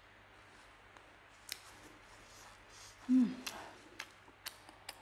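Eating sounds of a person chewing chicken wing: scattered sharp mouth clicks and lip smacks. About three seconds in there is a brief low hum from the eater, falling in pitch, which is the loudest sound.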